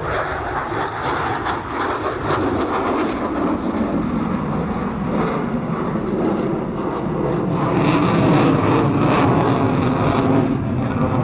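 Jet noise from a Swiss Air Force F/A-18 Hornet's twin turbofans during a display flight: a loud rushing rumble with a crackle through it, swelling about eight seconds in.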